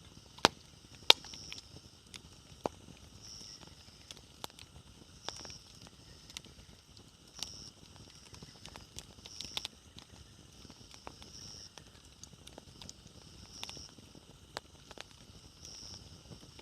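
Wood bonfire crackling, with irregular sharp pops and snaps, the two loudest about half a second and a second in. Behind it, a faint high chirp repeats about every two seconds.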